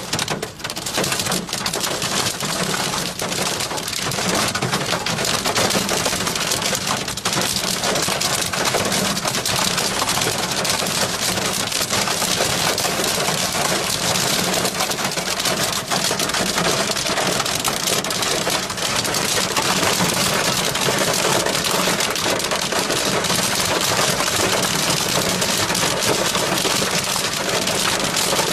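Heavy rain and hail pelting the car's roof and windshield, heard from inside the cabin: a dense, steady rush of countless small hits that never lets up.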